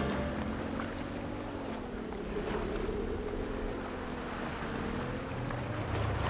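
Stormy-sea sound effects: wind and waves rushing, with a faint howl that slowly rises and falls.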